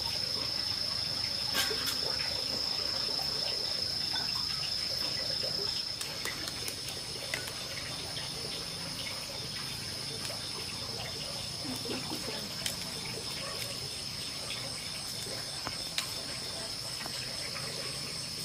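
Steady high-pitched insect trill, strongest for the first six seconds and then fainter while a second, higher trill joins. A few faint ticks are scattered through it.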